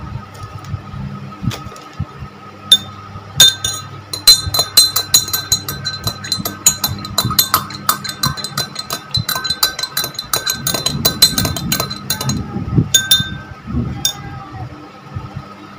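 A metal spoon stirring in a tall drinking glass of milk, clinking rapidly against the glass for about nine seconds, then a few single clinks near the end.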